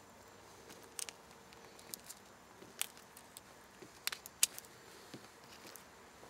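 Faint crackling and sharp clicks of a grouse being skinned and pulled apart by hand, skin and feathers tearing: a scattered handful of snaps, the loudest about four and a half seconds in.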